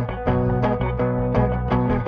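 Music with guitar and bass over a steady beat.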